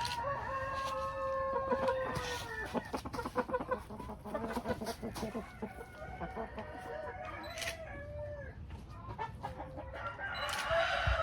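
Speckled Sussex chickens: a rooster crows once, a long held call lasting about two and a half seconds, followed by clucking and short calls from the flock.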